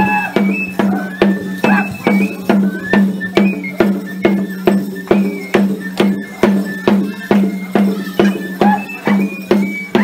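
Loud dance music with a steady beat of about two strong strokes a second, shaker percussion, and a melody line on top.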